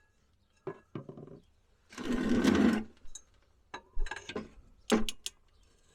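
Metal tools and brake parts clinking and clicking during brake work, with a short mechanical rattle lasting under a second about two seconds in, the loudest sound here.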